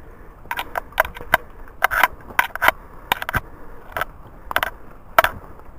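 Footsteps crunching on a forest trail: short, sharp crunches at an uneven pace, a few each second, as hikers walk on.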